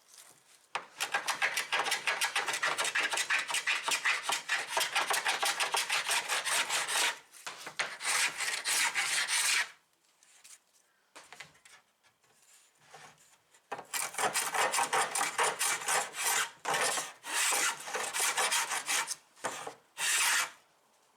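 Wood being worked by hand with an abrasive tool: quick, even back-and-forth rubbing strokes. They come in spells, with a pause of about four seconds in the middle.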